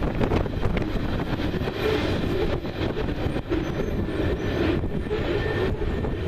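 A train rolling past: a steady, loud noise of wheels on the rails, broken by frequent irregular clicks.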